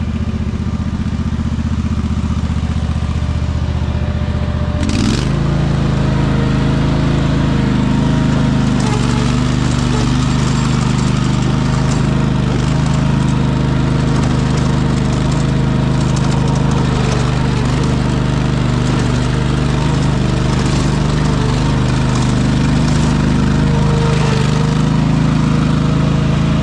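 An engine running steadily, stepping up to a higher speed about five seconds in and holding there.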